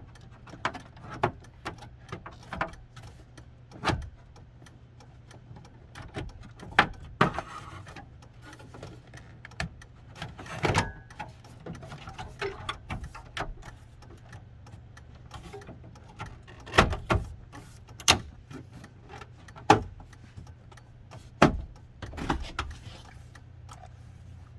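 Irregular plastic clicks, snaps and knocks of a gauge cluster and dashboard trim panels being handled and fitted back into a pickup's dash.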